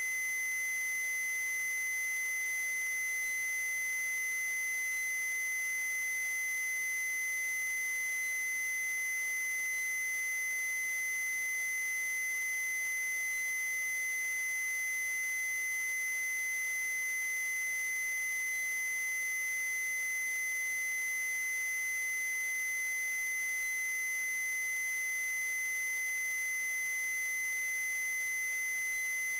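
A steady, unchanging high-pitched electronic tone with fainter higher overtones over a faint hiss.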